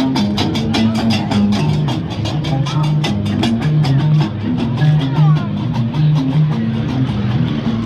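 Music with a fast, steady beat and a stepping bass line, with plucked strings.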